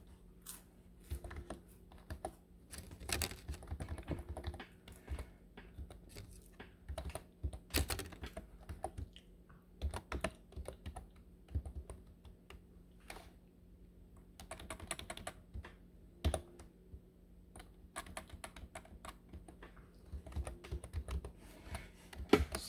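Typing on a computer keyboard: irregular keystrokes in short runs with pauses between, over a faint steady low hum.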